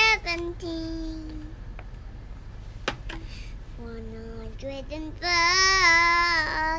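A young girl singing the numbers of a skip-counting sequence in short notes, ending on a long held note in the last second and a half. A single sharp tap about three seconds in.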